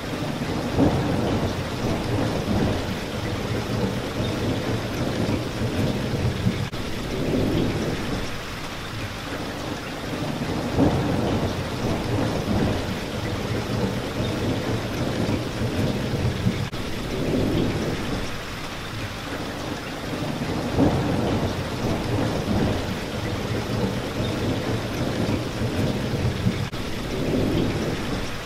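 Steady rain falling on a window pane, a constant patter with low rumbling swells that rise and fall every few seconds.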